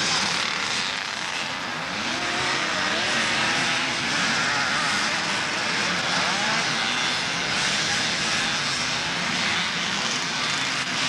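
A pack of motocross motorcycles racing uphill, several engines revving at once with pitches overlapping and rising and falling.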